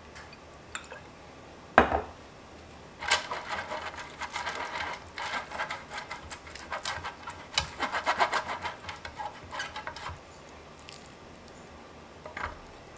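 Silicone pastry brush sweeping back and forth across a textured metal baking pan, spreading oil in many quick scratchy strokes. A single sharp knock comes about two seconds in, before the brushing starts.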